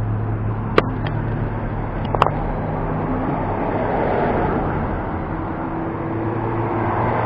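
Road traffic on a bridge: a steady rumble of vehicles with a low hum, swelling a little in the middle as a vehicle passes, with two or three short sharp clicks near the start.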